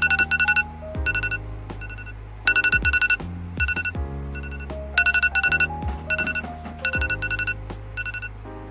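Electronic alarm beeping in quick bursts of rapid high beeps, one burst about every second, over background music with a steady bass line.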